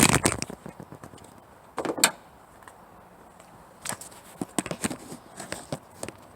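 Knocks and clicks of hands handling the car battery's terminals: a loud knock at the start, a sharp click about two seconds in, then a run of lighter taps and clicks.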